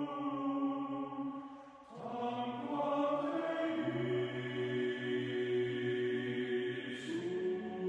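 Background music: slow, wordless choral chanting with long held notes. The sound dips briefly just before two seconds in, then a new held chord begins.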